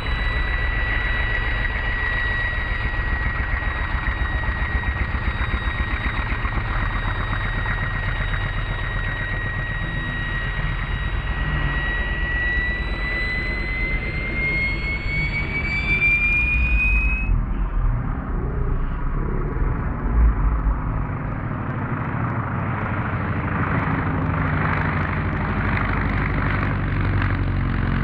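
Large-scale radio-controlled model aircraft engine running, with a high steady whine that rises in pitch and then cuts off abruptly about two-thirds of the way through. A rougher engine and propeller noise with a low rumble follows.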